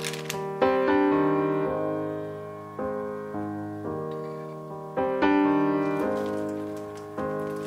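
Solo piano background music: slow chords, each struck and left to fade before the next.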